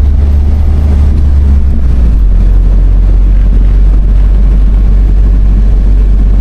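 Motorhome engine and road noise while driving, a loud steady low drone; about two seconds in the engine note steps down lower and stays there.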